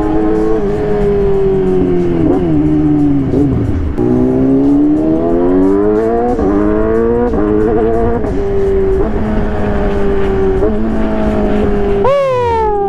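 Yamaha R6 inline-four engine running through the gears. It slows with a falling pitch broken by short rev blips on the downshifts, about two to three seconds in. It then pulls up with quickshifted upshifts, where the pitch climbs and drops back in steps. Near the end it gives one sharp auto-blip that falls away.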